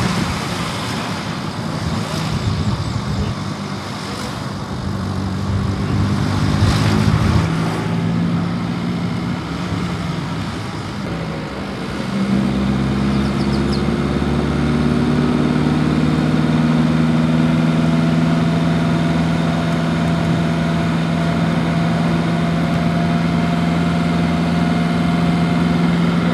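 Car engine and road noise heard from inside the car while driving. About halfway through, the engine note becomes louder and steadier, rising slowly in pitch as the car picks up speed on the open road.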